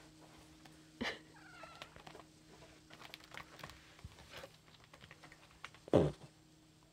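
A tabby cat's short meows: a brief falling call about a second in and a louder, fuller one about six seconds in. Faint clicks of claws on the sisal scratching post come in between.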